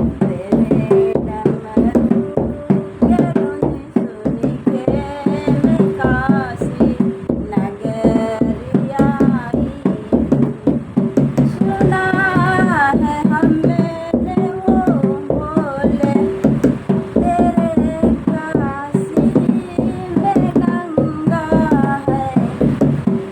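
A Hindi song: a voice singing a wavering, ornamented melody over a fast, steady hand-drum beat.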